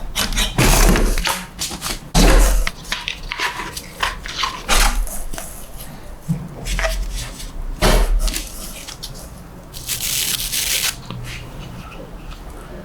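Unpacking and handling noises from a vacuum cleaner and its packaging: a series of short knocks, thumps and rustles, with a louder hissing rustle of about a second near the ten-second mark.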